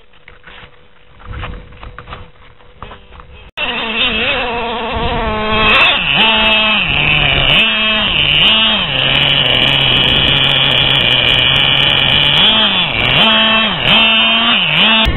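The small two-stroke nitro engine of a Traxxas Revo 2.5 radio-controlled truck, revving up and down in repeated swoops, with a longer steady run in the middle. It comes in suddenly after a few fairly quiet seconds.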